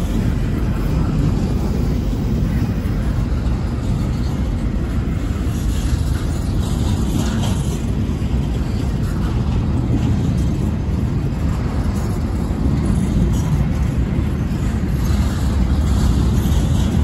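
Double-stack intermodal freight train's container well cars rolling past: a steady, loud rumble of steel wheels on the rails, with scattered light clicks.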